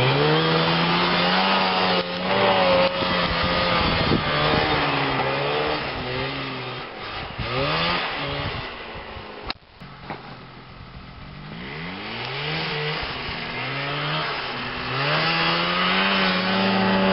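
Vintage two-stroke snowmobile engine revving up and down again and again as it pulls away. About halfway through there is a sharp click and the engine falls faint, then it grows louder again, still revving, as the sled comes back.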